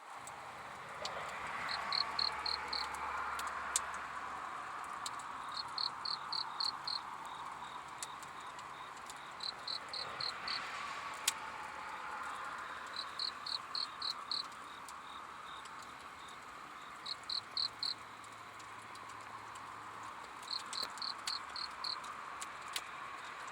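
Crickets chirping: one calls in short groups of about five quick high-pitched pulses, repeating every three to four seconds, over a steady background chorus of insects. A few sharp single crackles, as from a campfire, stand out now and then.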